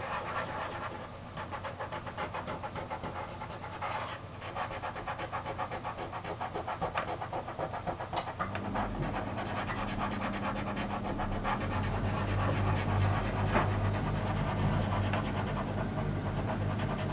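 Soft pastel stick scrubbed over pastel paper in small circular strokes: a quick, rhythmic scratchy rubbing. A steady low hum comes in about eight seconds in and grows louder.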